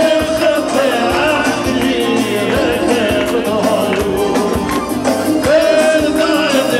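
Live band playing through PA speakers, with a man singing into a handheld microphone over the accompaniment and a steady beat.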